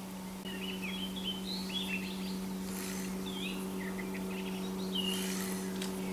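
Songbirds chirping and twittering in quick runs of short high notes over a steady low hum, with two brief hisses in the middle.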